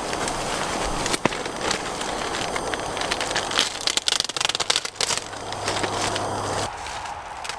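Plastic tarp being handled and pulled into place, crinkling and rustling with dense sharp crackles, busiest a few seconds in.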